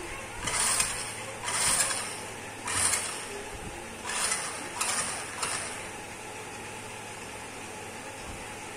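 Small DC gear motors of a homemade Arduino Nano RC car whirring in six short spurts, one per tap of the phone control app, then stopping for the last three seconds.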